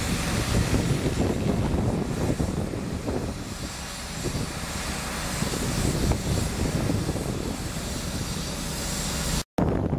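Steady rumbling drone of a track-maintenance foundation-setting (drilling) train's engines and machinery running, cutting out abruptly near the end.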